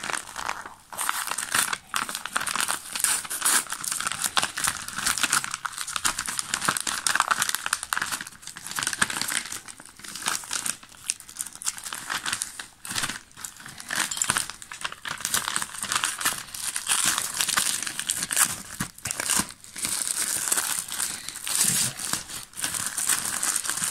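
Bubble-lined padded paper envelope being torn open by hand: irregular, continuous crinkling and crumpling of the paper and bubble-wrap lining, with some tearing and brief pauses.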